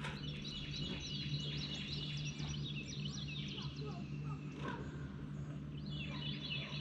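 Small birds chirping and singing in quick, repeated high notes, over a steady low hum.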